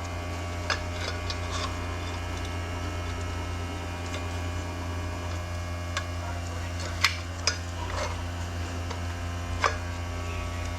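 Steady low hum of a running air compressor, with a few sharp metallic clinks of transmission parts being handled.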